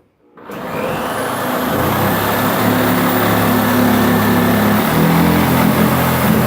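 A motor starts abruptly about half a second in and runs steadily, loud, with a low hum and a faint high whine that rises as it comes up to speed.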